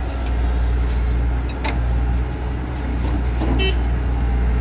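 Caterpillar 312C hydraulic excavator's diesel engine running steadily with a low drone while the machine works, with a few sharp knocks about one and a half and three and a half seconds in.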